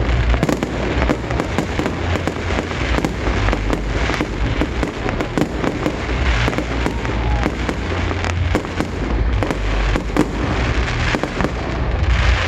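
Fireworks display: a dense, continuous barrage of sharp bangs and crackling over deep booms, with no break.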